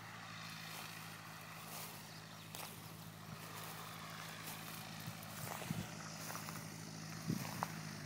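Single-engine Cessna 172 propeller engine running at a distance: a steady low drone. A couple of soft thumps come in the second half.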